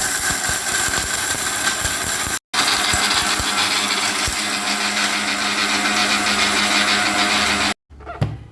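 Electric mixer grinder (Indian 'mixie') running at full speed, grinding dry spices into powder. It drops out abruptly for a moment about two and a half seconds in, runs again, then stops suddenly near the end.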